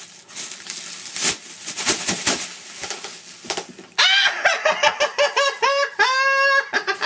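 Plastic packaging crinkling and rustling as a toy is pulled out of its bag. About four seconds in come sudden loud, high-pitched excited squeals and giggles from a man.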